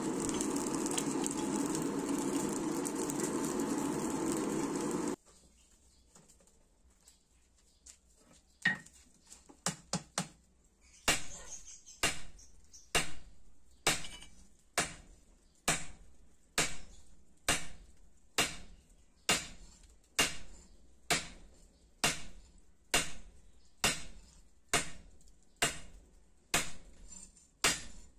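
Steady rushing of a coal forge fire for about five seconds, cut off suddenly. After a short quiet, a hand hammer starts striking red-hot leaf-spring steel on an anvil, a few irregular blows and then a steady rhythm of about one ringing strike a second, forging a sickle blade.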